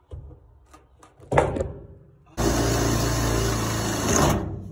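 Power drill running under load as it bores a mounting hole through the tool box's aluminium checker-plate floor. It starts about two and a half seconds in and stops near the end, after a single knock a little over a second in.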